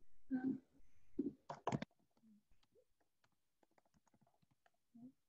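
A brief vocal sound and a few sharp clicks, heard through a video call, in the first two seconds. After that there is near silence with very faint ticks.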